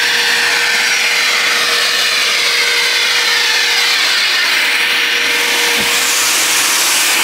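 Portable shop vacuum running steadily, a loud rushing hiss over a steady motor whine as it sucks air through its hose.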